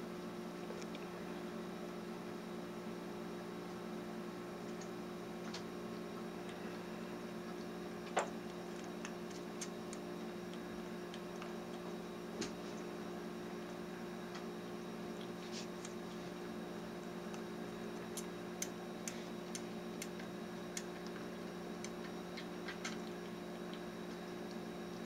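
Small wet clicks and ticks, scattered and irregular, of a kitten sucking milk formula from a nursing bottle, over a steady low hum; the sharpest click comes about a third of the way in and a loose run of faint ticks near the end.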